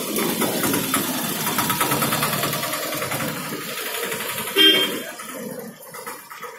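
Street traffic: a motor vehicle engine running close by with a fast rattle, then one short horn honk about four and a half seconds in.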